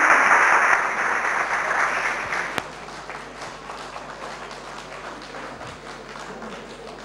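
Audience applauding, loud at first, then thinning after about two and a half seconds into scattered claps that die away, with one sharp knock as it thins.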